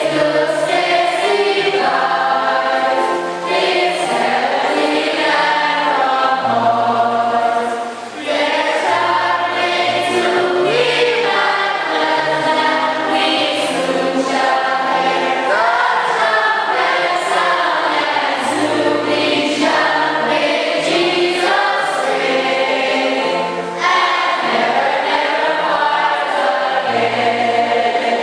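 Choir singing a gospel or church song, with held low bass notes beneath the voices.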